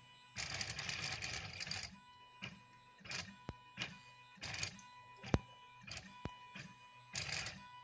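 Stepper motors of a CL-260 3D printer driving a ballpoint pen head as it draws: one long whirring run of movement at the start, then short whirring moves every half second to a second. Between the moves there is a steady high whine, and there are a few sharp clicks, the loudest a little past halfway.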